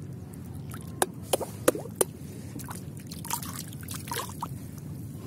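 Hands slapping and splashing shallow rice-paddy water at the mouth of an eel hole, to tempt the eel to the bait: four sharp plops in quick succession, then a spell of lighter splashing and trickling.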